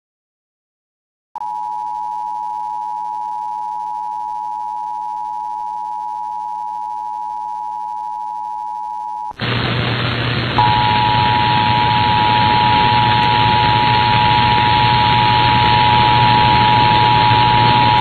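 Emergency Alert System two-tone attention signal (853 and 960 Hz together), a steady tone starting about a second and a half in. About nine seconds in it cuts to an AM radio reception of a monthly test, where the same two-tone attention signal sounds again over heavy static hiss and hum.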